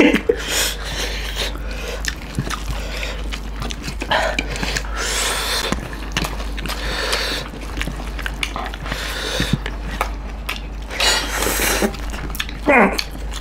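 Close-miked eating by hand: wet chewing and lip smacks, and rice and curry squished between fingers, with many small clicks and several short noisy breaths or sniffs.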